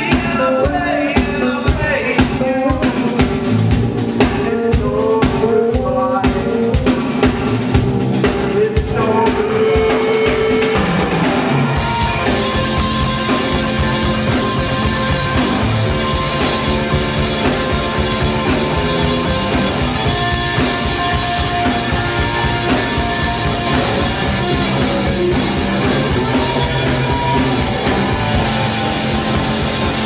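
Live rock band playing: electric guitar, bass guitar and drum kit, with a steady drum beat. About twelve seconds in, the playing thickens into a denser, fuller full-band section.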